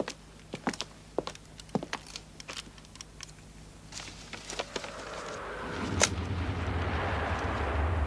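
Papers being handled, with scattered small clicks and rustles. From about five seconds in, a deep rumble of distant artillery fire swells and keeps growing, with one sharp click about six seconds in.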